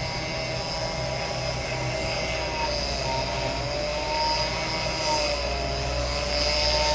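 Class 196 diesel multiple unit running, a steady layered mechanical whine over a low engine rumble, its tones drifting slightly in pitch.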